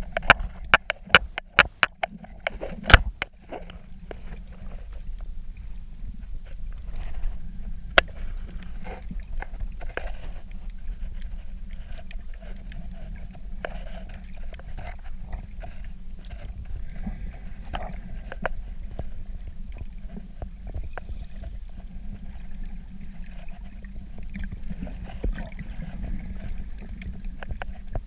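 Underwater sound picked up by a submerged camera: a steady, muffled low rumble of water with scattered clicks and crackles, a cluster of sharper clicks in the first three seconds.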